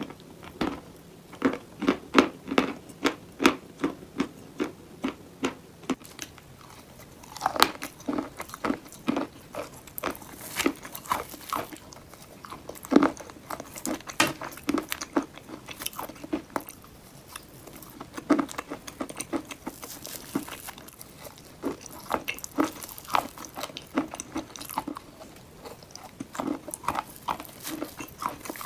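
Pressed chalk bowls being bitten and chewed up close, with sharp dry crunches. The crunches come in a quick even run of about two or three a second at first, then fall into an irregular scatter of crunches and crumbling.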